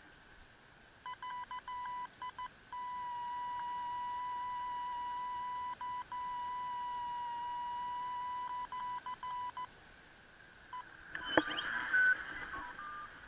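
FrSky Taranis transmitter's audio variometer tone, reporting the glider's climb or sink: short beeps, then one steady tone held for about six seconds with a slight dip in pitch, then short beeps again. Near the end comes a sudden loud knock with rustling, then a few short beeps at higher pitches.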